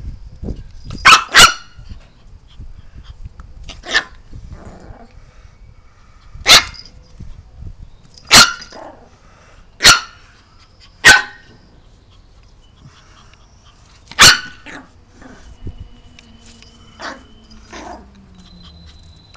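Small Yorkshire terrier barking in short, sharp single barks: a quick double bark about a second in, then one bark every second or two, with a few softer barks near the end.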